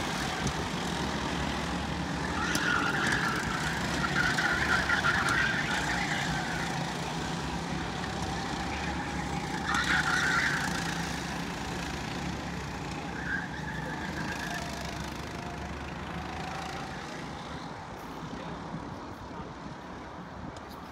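Several 270cc racing karts' engines running past the trackside in a steady mechanical drone. It swells loudest a few seconds in and again about ten seconds in, as karts come close, then fades off toward the end.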